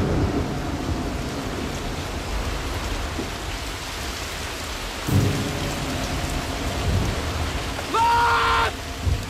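Heavy rain pouring in a storm, with a rumble of thunder about five seconds in. Near the end there is a brief, loud, steady high tone.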